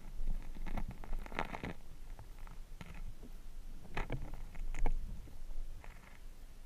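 Handling noise from a camera in a waterproof housing moved underwater: a run of short scrapes and clicks, loudest about four to five seconds in, over a low, steady rumble.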